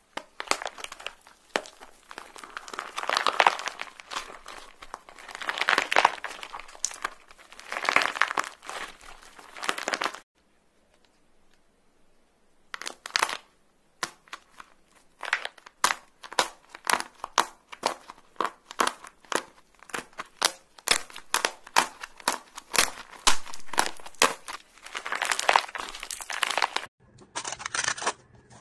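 A brittle cracked crust being crushed and picked off squishy rubber toys: a dense crinkling crunch in surges for about ten seconds, then after a short pause a long run of separate sharp crackles and snaps. Near the end, foil stretched over a lid crinkles as it is pressed.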